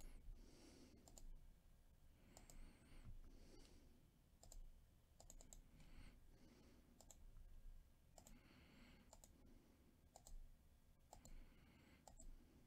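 Faint computer mouse clicks, scattered a second or more apart and some in quick pairs, as a web page button is clicked again and again.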